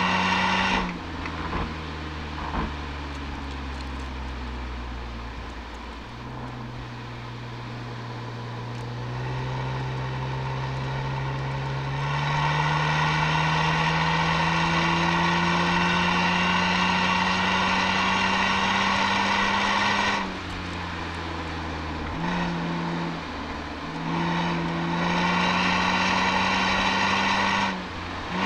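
Toyota Altezza's 1G-FE two-litre straight-six through an Apexi exhaust, heard from the rear bumper. It pulls on light throttle with the pitch slowly rising, opens up loudly about twelve seconds in and keeps climbing, then the throttle shuts with a sudden drop. A couple of short blips follow, and it pulls hard again near the end.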